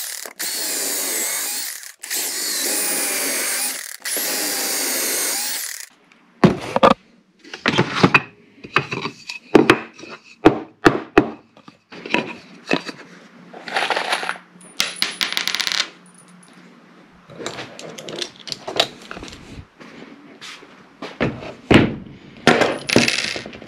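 Power drill running in three bursts of about two seconds each, boring pocket holes in plywood, then a string of clicks and knocks as the wood and tools are handled.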